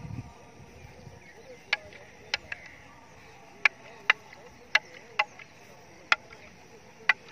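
Long wooden fighting staffs clacking sharply against each other in a sparring bout: about nine hard strikes at an irregular pace, some in quick pairs, starting a couple of seconds in.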